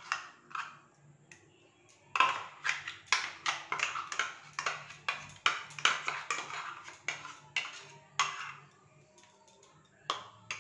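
Steel mixer-grinder jar clinking against a stainless steel bowl as spinach paste is tipped and knocked out of it: a quick run of sharp metal taps, about two or three a second, for some six seconds, with a few single taps near the start and near the end.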